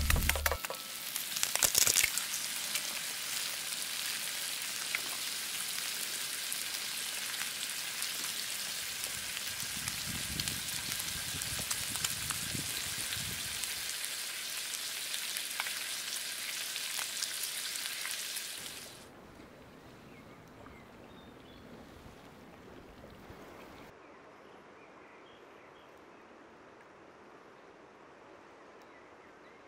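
Food sizzling and crackling in a frying pan, a steady hiss with small pops. It cuts off abruptly about 19 s in, leaving only faint outdoor background.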